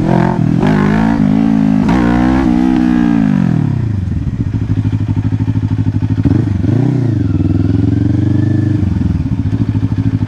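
Kawasaki Ninja 500 parallel-twin engine under way, picked up by a helmet mic: the revs rise and fall for the first few seconds, then drop away about three and a half seconds in as the bike slows. There is a brief dip and rise near the middle, and the revs drop again near the end.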